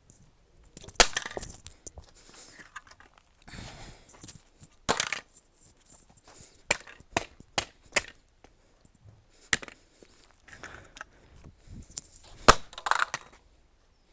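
A graphics card dropped repeatedly onto the floor, landing with a series of sharp clattering impacts: scattered single hits, a quick run of four about half a second apart in the middle, and two close together near the end.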